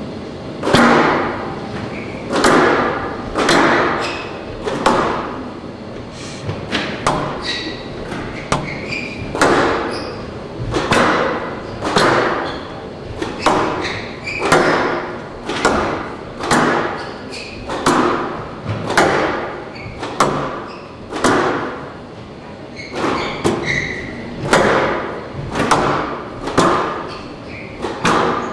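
Squash ball struck hard in a long rally: racquet hits and the ball smacking off the walls come about once every second or so, each echoing in a large hall.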